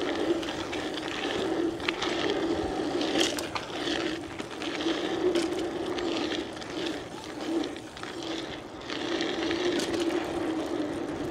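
Bicycle being ridden: a steady rolling hum from the tyres with wind noise, and a few short rattles and clicks from the bike.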